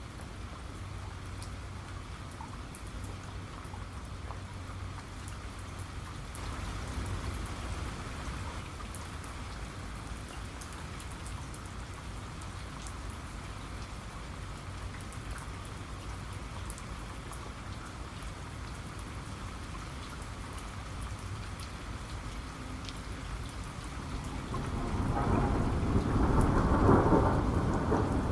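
Steady rain falling, with scattered drips ticking through it. Near the end a roll of thunder builds up and rumbles loudly over the rain.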